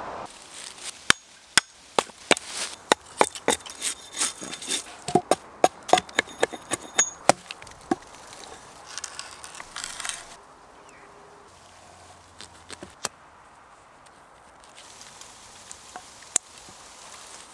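A chisel being hammered into a wooden log with a metal hammer: a quick run of sharp knocks for about seven seconds, then quieter scraping and a few single taps.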